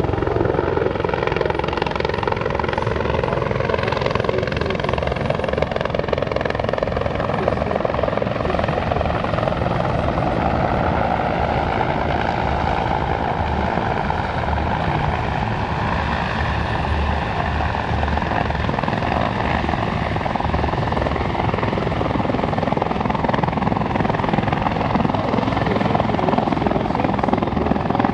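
RCAF CH-146 Griffon helicopter flying slowly at low level, its rotor beating steadily under the whine of its twin turbine engines, the whine slowly drifting up and down in pitch.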